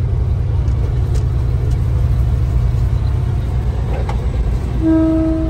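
Steady low rumble of a large dump truck's diesel engine and road noise, heard from inside the cab while cruising at highway speed. Near the end a single steady tone starts and holds for over a second.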